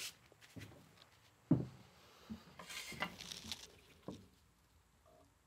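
Handling noises from a fuel injection control module in its metal casing being set down and picked up on a shop towel: a few light knocks, the loudest about a second and a half in, and a short rustle of gloved hands around three seconds in.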